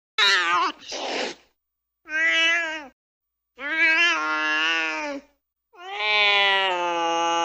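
An agitated domestic cat: a short cry with a harsh hiss, then three drawn-out meowing yowls, the last one long and steady.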